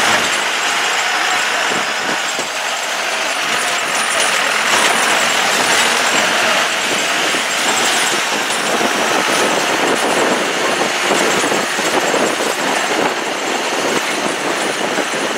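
Motor vehicle driving along a rough unpaved road, heard from inside: a steady rush of engine, tyre and wind noise with small knocks and rattles.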